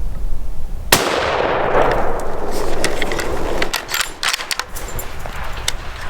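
A single rifle shot about a second in, its report echoing away over a couple of seconds, followed by a run of sharp clicks and knocks.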